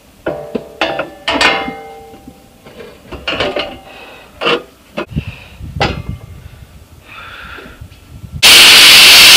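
Sheet-steel panels of a homemade air intake box knocking and clanking as they are handled and fitted in an engine bay, with several knocks ringing briefly. Near the end an angle grinder starts abruptly, cutting sheet steel, and is much louder than the handling.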